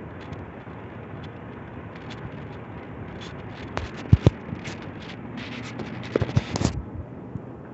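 Ceiling fans running with a steady rush of air, broken by a few sharp knocks about four seconds in and a quick cluster of crackling clicks a little after six seconds.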